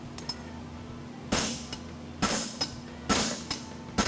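Blacksmith's hammer striking a steel draft horseshoe on an anvil: four ringing blows about a second apart, starting about a second in, each followed by a lighter tap.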